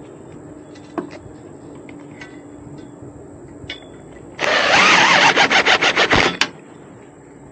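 A cordless drill-driver runs in one burst of just under two seconds, stuttering in rapid pulses near the end before stopping, as it drives a bracket fastener home. Light clicks and knocks of parts being handled come before it.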